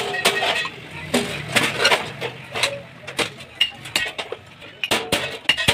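Irregular sharp knocks and clinks, several a second, over a faint low hum.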